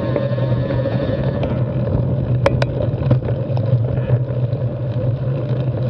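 Carbon 6Fattie mountain bike rolling down a dirt singletrack: a steady drone of knobby tyres, wheels and drivetrain, with two sharp clacks about two and a half seconds in and a few lighter knocks after.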